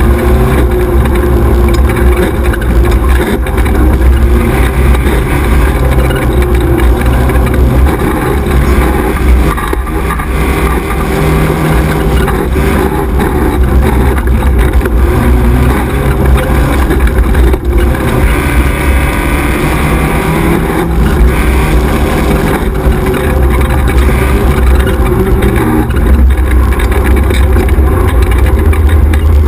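XY 1100R 4x4 buggy's engine running hard under racing load, loud and continuous, its note rising and falling with the throttle and easing off briefly about ten seconds in.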